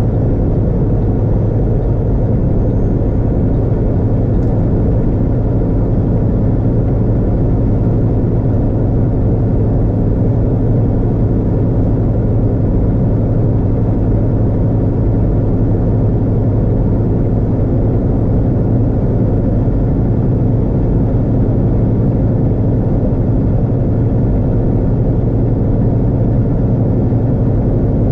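Steady engine drone and tyre roar of a vehicle cruising at highway speed, with a constant low hum.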